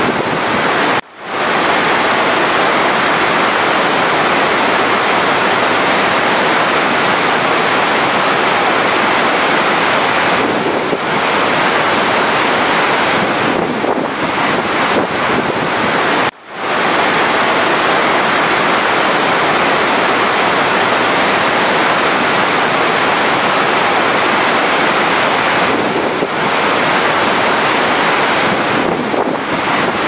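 Steady rushing of a large waterfall, a dense even wash of falling water. It cuts out briefly twice, about a second in and about halfway through, and fades back in each time.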